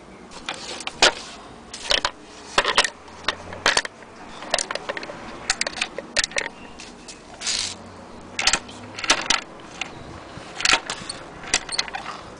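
Irregular metallic clinks and small knocks of the wire hook-and-eye coupling between wooden toy train cars being handled and hooked together.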